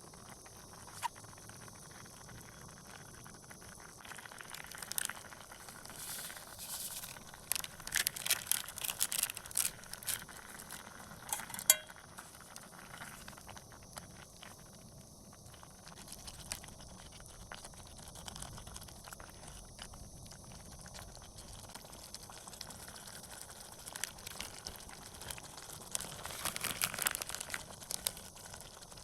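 Camp cookware and utensils clinking and scraping in scattered clusters, busiest about a third of the way in and again near the end, with one sharper knock among them.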